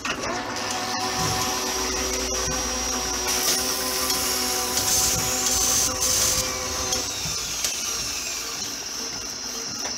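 Workshop machinery sound effects: a steady motor whir with a high whine, broken by sharp metallic clicks, with a gritty grinding hiss through the middle.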